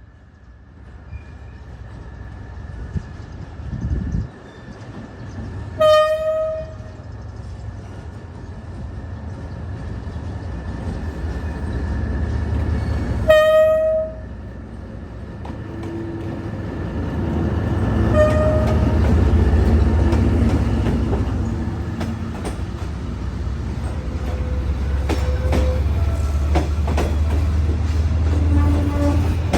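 Train pulling away from a station: two short, loud horn blasts about seven seconds apart, then a fainter third. The diesel locomotive's rumble builds through the second half, with wheels clicking over the rail joints near the end.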